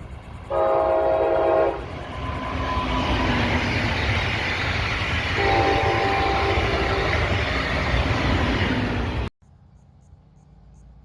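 Train horn sounding two blasts, each a little over a second long, as a train passes close by with a loud rushing of wheels on rail. The sound cuts off abruptly about nine seconds in, leaving a faint low rumble.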